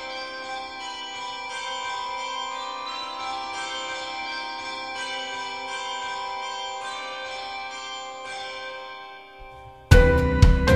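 Soundtrack music: soft, sustained bell-like tones ringing over each other, fading away about nine seconds in. Near the end, louder music with a beat of sharp struck or strummed notes starts abruptly.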